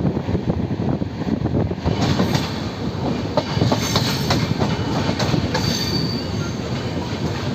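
Passenger train coach running at speed, its wheels rumbling on the rails, heard through the open coach window. From about two seconds in the running turns sharper and clattery, with rapid clicks over rail joints and a brief high wheel squeal, as the coach rolls across a multi-track station yard.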